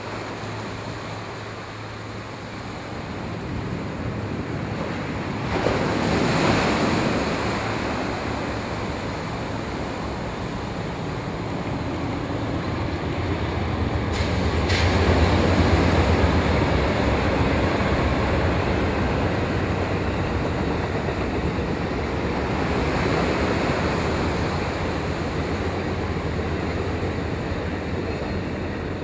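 Surf breaking steadily on the beach, with surges as waves come in. From about the middle, the low rumble of an Amtrak passenger train's diesel locomotives crossing a steel trestle rises under the surf and then fades slowly.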